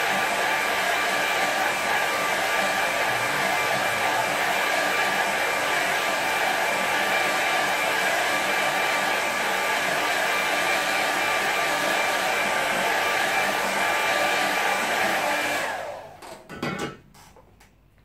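Handheld hair dryer running steadily: a loud even rush of air with a constant motor whine. It is switched off near the end, and a few light knocks follow.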